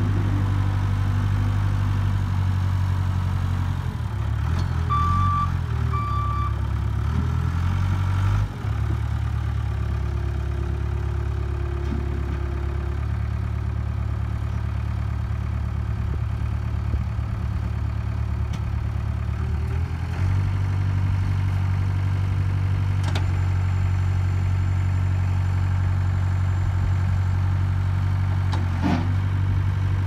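1989 Case 580K backhoe's four-cylinder diesel engine running steadily while its loader and stabilizer hydraulics are worked; the engine note dips slightly about eight seconds in and picks up again about twenty seconds in. Two short beeps sound about five seconds in.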